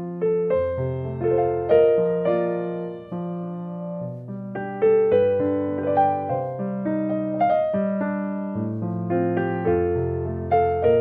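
Gentle piano background music: single notes struck and left to fade over a slow, low bass line.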